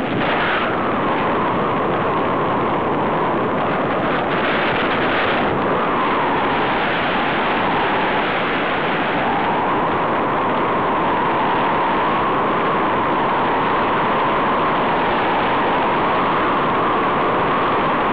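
Steady rushing wind on the microphone of a camera held out from a tandem paraglider in flight, with a faint whistling tone in it that wavers in pitch.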